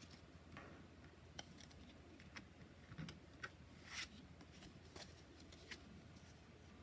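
Faint, scattered small clicks and brief brushing sounds of hands handling oracle cards. The loudest is a short swish about four seconds in.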